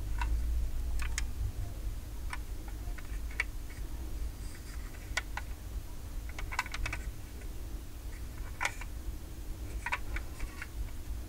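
Light, irregular clicks and taps from a 1:36 Kinsmart diecast Subaru Impreza WRC 2007 model car being handled and turned over in the hands, over a low steady background hum.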